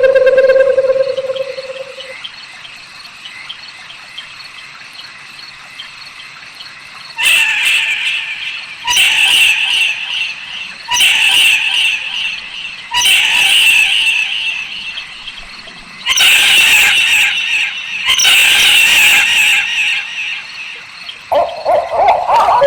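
Owl calls: a wavering, pulsing hoot fades out about two seconds in. After a pause comes a series of six harsh, rasping screeches, each a second or two long, about two seconds apart. A new wavering hoot begins near the end.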